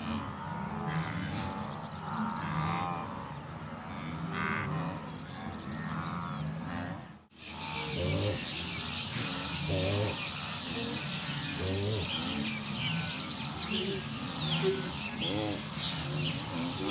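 A herd of wildebeest grunting, with bird chirps and a steady insect buzz behind them. The sound drops out for an instant about seven seconds in.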